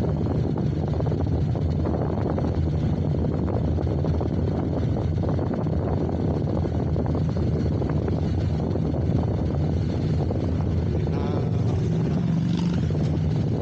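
Motorcycle engine running steadily while riding, with wind noise on the microphone over a low, even engine hum.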